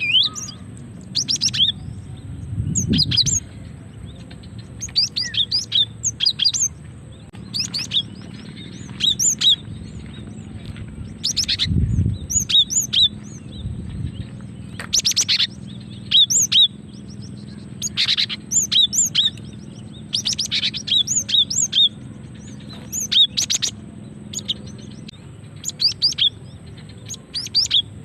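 Female cinereous tit (gelatik batu) calling: short bursts of high chirping notes repeated every second or two. This is the female's call that draws in males and provokes them to sing.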